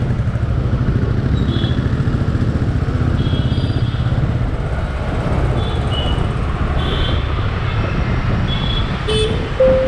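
A two-wheeler's engine and road rumble riding in dense city traffic, with short toots of other vehicles' horns scattered throughout and a louder horn blast close by near the end.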